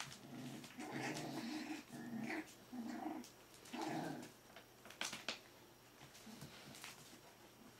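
Four-week-old Berger des Pyrénées puppies growling in play: about five short low growls in the first four seconds, then a few sharp clicks a second later.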